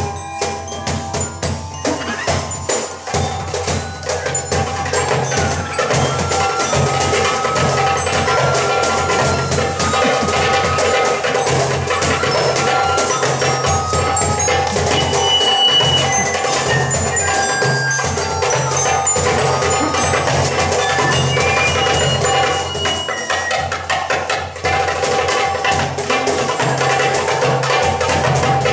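Live percussion ensemble playing: many overlapping short, bright pitched mallet notes over a steady, pulsing low drum beat, building up in loudness over the first few seconds.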